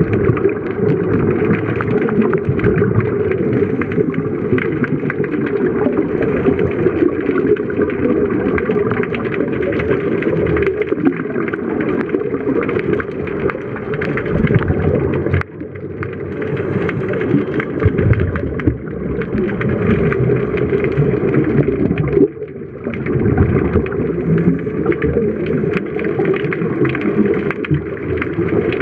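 Muffled underwater rumble with a dense crackle of bubbles from scuba divers' regulator exhaust. The sound drops out briefly twice, about halfway through and again about two-thirds through.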